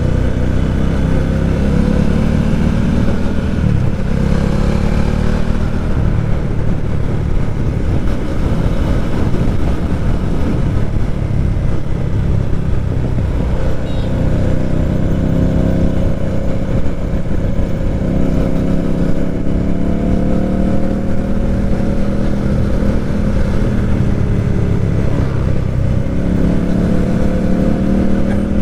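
Motorcycle engine under way. Its pitch climbs through several pulls and drops back between them at the gear changes.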